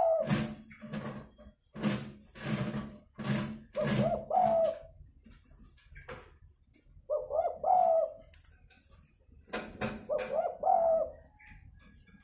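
Spotted dove (tekukur) giving its aggressive fighting coo in repeated phrases, with sharper noisy notes between the coos. It is the kind of call used as a lure to bring wild spotted doves down to a trap.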